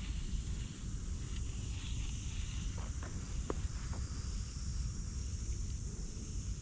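Outdoor ambience: steady high-pitched insect chirring over a low wind rumble on the microphone, with a few faint ticks about three seconds in.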